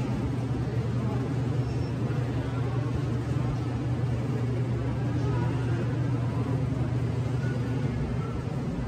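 Steady low machine hum of a supermarket interior, with faint store background noise above it.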